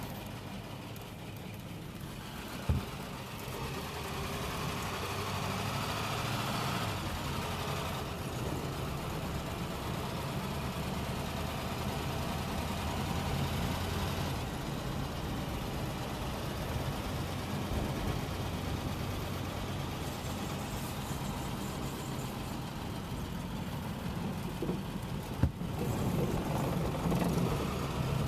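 Cadillac engine running at low road speed, with steady tyre and wind noise, heard from inside the cabin. Two sharp knocks stand out, about three seconds in and near the end.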